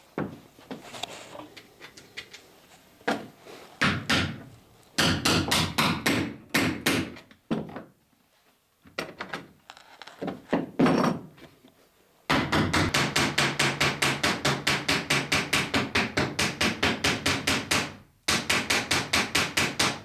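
Copper boat rivet being set through a wooden rib: a few separate ball-pein hammer blows, then a long, even run of quick light hammer blows, about six a second, burring the copper nail end over the rove against a dolly held on the nail head outside, broken by a short pause near the end before a second run.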